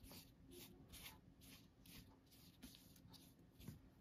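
Paintbrush scrubbing back and forth through wet paint on paper, a faint rhythmic swishing at about three strokes a second, as blue and green paint are mixed into cyan.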